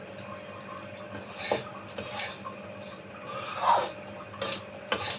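Metal spatula scraping and stirring dry roasted gram flour and powdered sugar around a metal kadhai: a handful of separate rasping scrapes against the pan, the loudest and longest a little before four seconds in.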